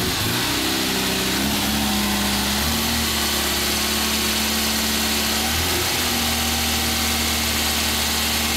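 Classic Fiat 1500 convertible's four-cylinder engine idling steadily, its speed stepping up slightly a couple of times and dipping briefly near the end.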